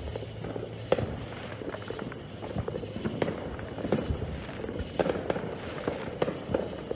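Distant fireworks going off all around: irregular pops and bangs, several a second, with a few louder reports standing out.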